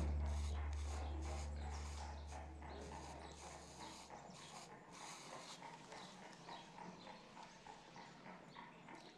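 A deep sustained music chord fades out over the first four seconds. Faint, regular ticking at about three ticks a second continues under it and after it.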